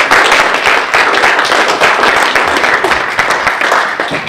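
Audience applauding: a dense, steady patter of many hands clapping that eases off near the end.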